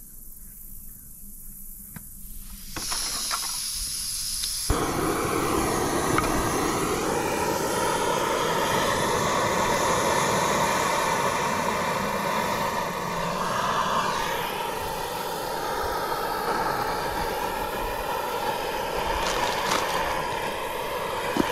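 Backpacking gas canister stove: gas starts hissing from the burner about three seconds in and catches about two seconds later. The lit burner then runs with a steady, loud hiss under a frying pan. A few light clicks come near the end.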